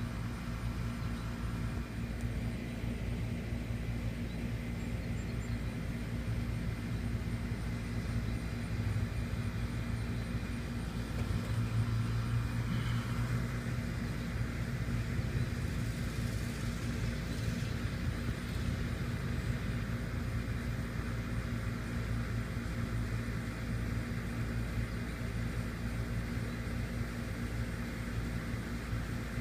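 A steady low rumble, a little louder around the middle.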